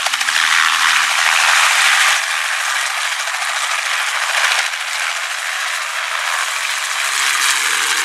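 Small two-bladed Robinson helicopter's main rotor beating in a rapid, rattling chop as it lifts off and flies low past.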